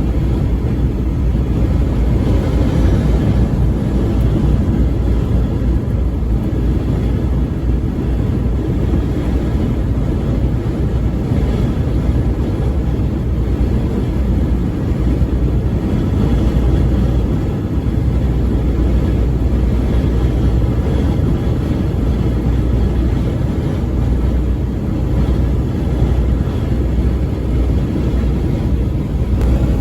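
Car driving at highway speed: steady low rumble of road and engine noise.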